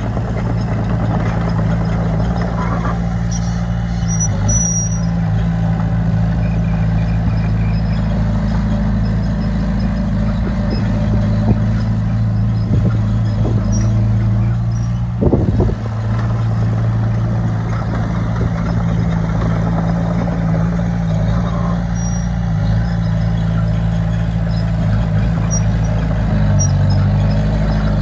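Heavy construction machinery's diesel engine running steadily, with a short clatter of knocks about halfway through and the engine note changing near the end.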